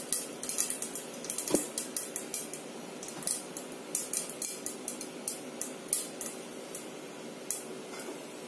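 Mustard seeds popping in hot oil under a stainless-steel pan lid, spitting and pinging against the lid. The pops come thick and fast, then thin out over the last couple of seconds, with one clearer ringing ping about a second and a half in.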